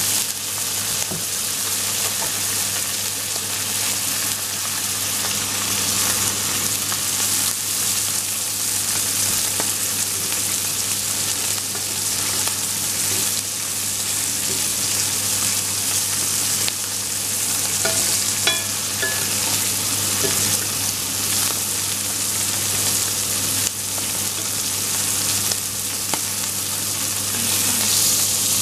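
Steak frying in foaming butter with garlic cloves in a cast-iron skillet, basted with a spoon: a steady sizzle over a low hum. A couple of brief ringing clicks come about two-thirds through.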